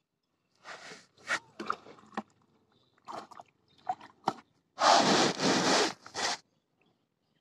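Scraping and rustling of dry straw and grass being brushed and handled, in several short bursts, the loudest lasting about a second and a half about five seconds in.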